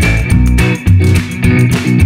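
Instrumental background music with guitar and a bass line playing a steady, repeating beat.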